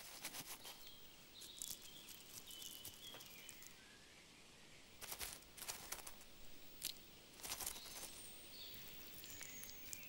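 Gray squirrel rustling and scratching through dry fallen leaves in short, irregular bursts, with faint bird chirps in the background.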